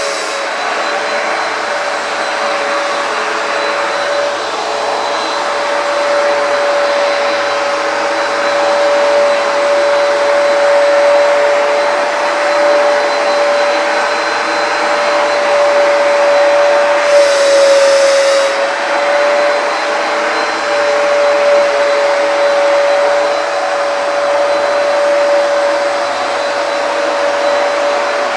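Hoover PowerDash carpet cleaner's suction motor running steadily with a whine over rushing air as it is worked over a rug. The user says the rug's tight backing restricts airflow and water pickup, and the machine sticks on it. A brief hiss sounds about two-thirds of the way through, with a short dip in the motor's pitch.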